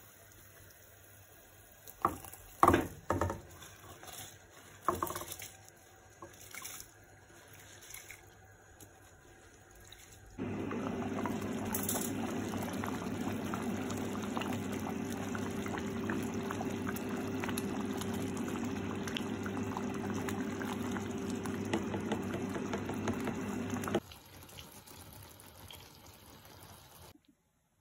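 A few loud knocks and splashes about two to five seconds in as rice is tipped from a glass bowl into boiling jaggery syrup. Then, from about ten seconds in, the rice boils in the syrup with a steady bubbling hiss and a low hum, which cuts off suddenly near the end.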